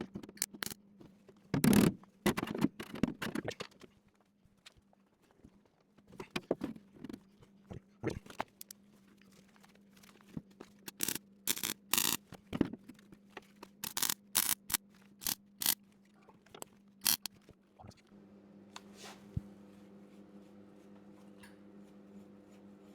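MIG welder laying short, irregular crackling bursts of weld, spitting because the shielding gas bottle has run empty. From about eighteen seconds in, a steady low hum takes over.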